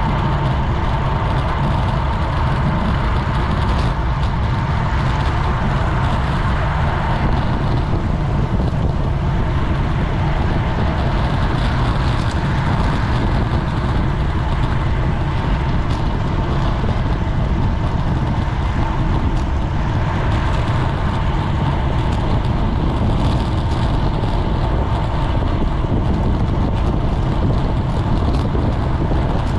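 Steady wind rush and rumble on a GoPro's microphone, with tyre and road noise from a racing bicycle moving at speed.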